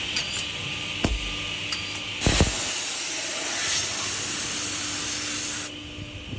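Automatic edgebanding machine running with a steady hum, with a sharp thump about a second in and another just after two seconds. A loud, even hiss starts with the second thump and cuts off shortly before the end.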